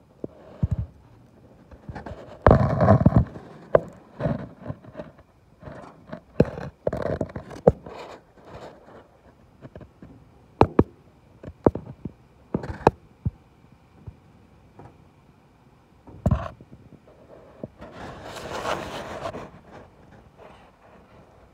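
Irregular knocks, clicks and scraping as an inspection camera is worked around the inside of a Cessna 150 horizontal stabilizer, its probe rubbing and bumping against the metal structure. A longer scrape comes about two and a half seconds in and another near the end.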